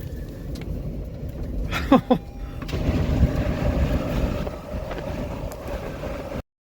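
Low rumbling wind and vehicle noise, with a brief falling squeal about two seconds in. The sound cuts off suddenly near the end.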